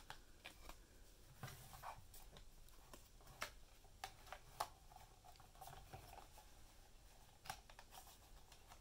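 Faint scratching and clicking as a paper sound card is pushed into the slot of a Microsonics 300 microphonograph and worked into place by hand, with several sharper clicks spaced irregularly.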